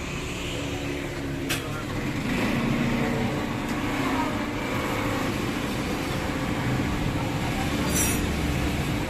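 Yamaha RX-King's 135 cc two-stroke single-cylinder engine running steadily after its rebuild, getting a little louder about two seconds in. A sharp click about a second and a half in.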